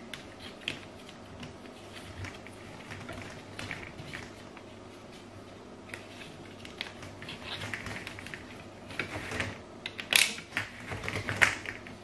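Corrugated plastic washing-machine drain hoses being handled and worked together by hand: scattered clicks, creaks and rustles of plastic, busiest and loudest near the end.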